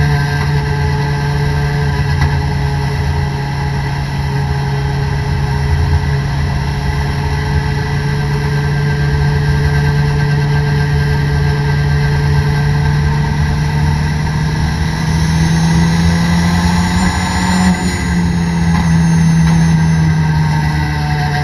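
Toyota Corolla race car's engine heard from inside the cabin, running at fairly steady revs with a slight rise in pitch about three-quarters of the way through, over a steady wash of road and spray noise.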